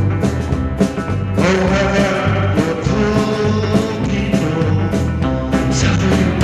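Rock-style music with a steady drum beat and a sung melody.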